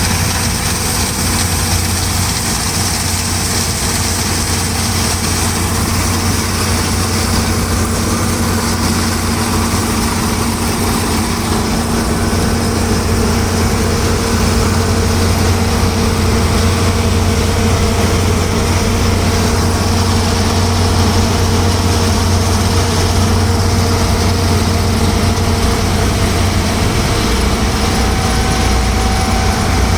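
New Holland TC5.30 combine harvester's diesel engine running steadily with a deep hum, growing slightly louder about halfway through.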